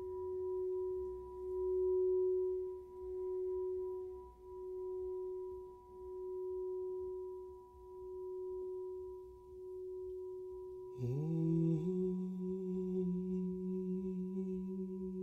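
Golden crystal singing bowl ringing with one steady tone that swells and fades about every one and a half seconds as the bowl is moved. About eleven seconds in, a man's voice slides up into a low, held chant note beneath the bowl's ring.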